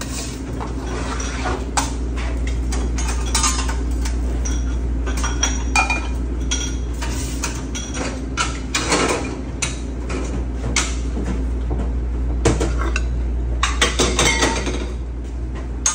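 Cook working a flat-top griddle: metal spatula and pans knocking, scraping and clinking in quick, irregular clatter, some strikes ringing briefly, over a steady low hum.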